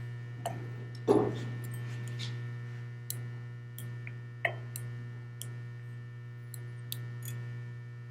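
Steady low electrical hum, with scattered light clicks and a louder knock about a second in from tools being handled on the engine's flywheel nut.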